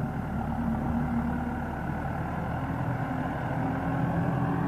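Case JX95 tractor's diesel engine running steadily close by, its note rising slightly about three and a half seconds in.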